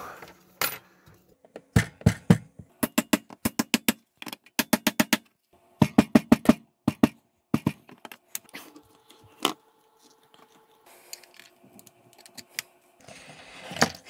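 Metal tools clicking, tapping and scraping against the hard plastic case of a small plug-in wall power supply as it is pried at its seam. The clicks come in quick bunches in the first half, then sparser, with a longer scrape near the end.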